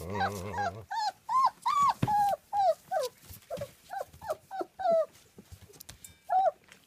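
German Shepherd puppies whining and yelping in short cries that rise and fall, about two a second, thinning out near the end. A low growl comes in the first second.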